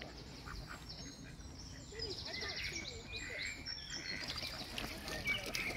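Small birds chirping and twittering, with a quick trill about two seconds in.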